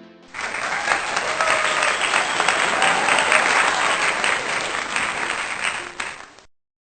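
A crowd clapping, with some faint voices mixed in. It starts abruptly and cuts off suddenly after about six seconds.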